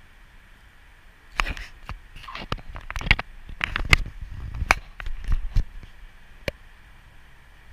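Lightsaber blades clashing in a duel: irregular sharp clacks and knocks, several in quick succession from about a second and a half in, then one last strike about six and a half seconds in.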